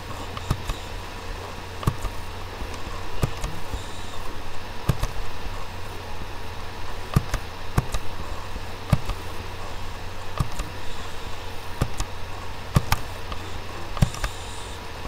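Computer mouse clicking about a dozen times at irregular intervals over a steady low electrical hum.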